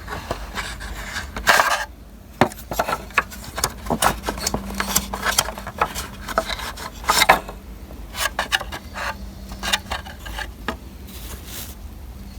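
Brush roller and plastic parts of a Dirt Devil Featherlite upright vacuum being handled and fitted back in place: irregular clicks, taps and scraping rubs.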